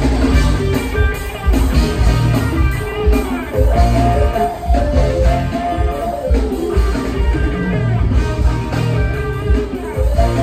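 Live band playing loud music, with an electric guitar prominent over bass and a steady beat.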